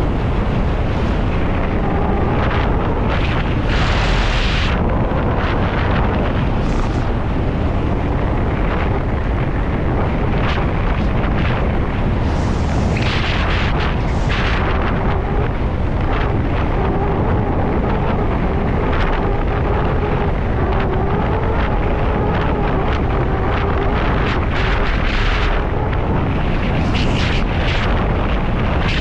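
Loud, steady rushing roar without a break, strongest in the low end, with a faint wavering hum over it through the middle.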